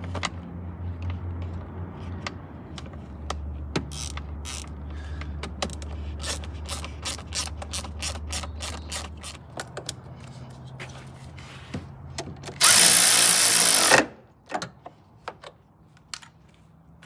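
Hand ratchet clicking in quick runs of strokes as fasteners are tightened, over a low steady hum. A loud rushing burst of noise lasting over a second comes near the end.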